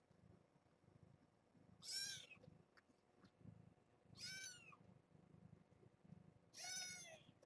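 Young kittens mewing: three short, high-pitched mews about two seconds apart, each dropping in pitch at the end.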